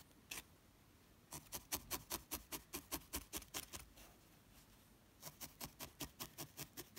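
Felting needle stabbing repeatedly through carded wool into a foam pad: faint, quick ticks about five a second, stopping for about a second midway and then starting again.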